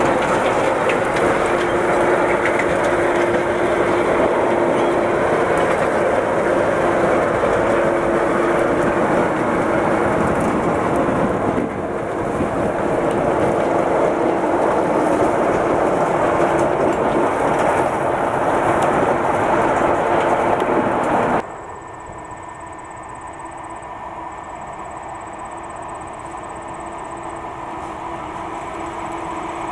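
Small diesel switcher locomotive running past close by with a passenger coach, its engine and steel wheels on the rails making a loud, steady sound. About 21 seconds in it suddenly drops to a quieter, more distant engine sound that grows slowly louder near the end.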